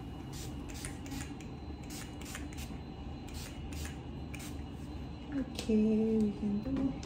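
Makeup setting spray misted onto a face: a quick series of short spritzes from a pump spray bottle. A voice sounds briefly near the end.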